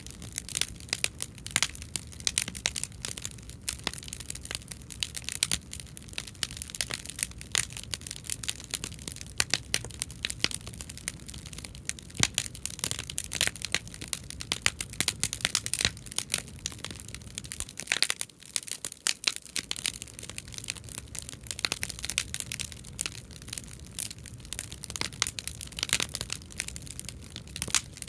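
Bonfire of scrap lumber stacked in a triangular frame burning hard, crackling with dense, irregular snaps and pops over a low rumble.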